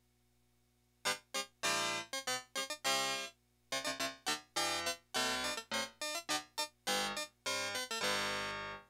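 Yamaha PS-6100 keyboard being played, starting about a second in with short, separate chords and notes, then ending on a longer held chord.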